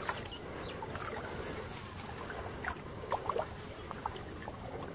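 Shallow floodwater sloshing and lapping around a person wading in it, with a few short splashes and drips, most of them in a cluster about three seconds in.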